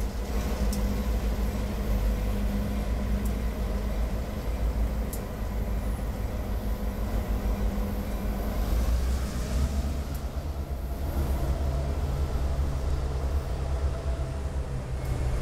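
EMD F-unit diesel locomotives, an F9B and an FP9A, passing with a steady low rumble, followed by passenger cars rolling by. A few sharp clicks sound in the first seconds.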